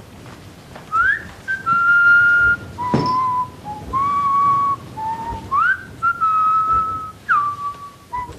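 A person whistling a slow tune, a run of single held notes, several of them swooping up into the note. A single sharp knock about three seconds in.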